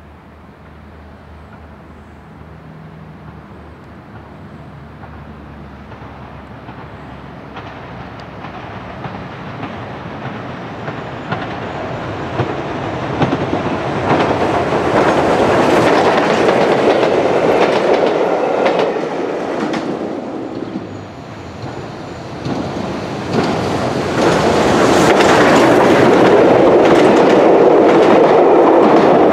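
LMS Jubilee class steam locomotive hauling a train of coaches, approaching and growing steadily louder until it passes close by about a quarter of the way through. The coaches follow, their wheels clattering over the rail joints, loudest near the end.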